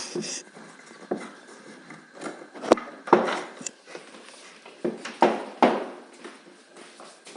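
Irregular knocks and clatter of western red cedar hive roof parts being handled and fitted together, with a few sharper knocks about three and five seconds in.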